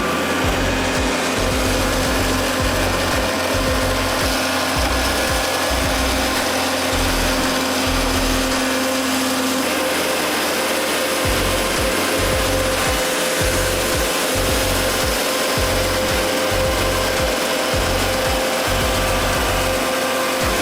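A power saw cutting wood with a steady, dense rasping noise, over background music with a pulsing bass beat.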